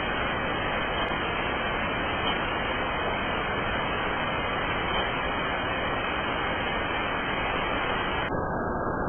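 Steady, even hiss-like noise with no separate knocks or bangs. It turns duller near the end, where the high end of the sound is abruptly cut away.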